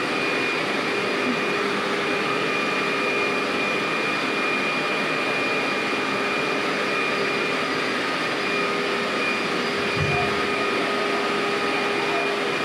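HYLA water-filter vacuum cleaner running steadily through a long metal wand and hose, its motor whining at a constant pitch. There is a brief soft bump about ten seconds in.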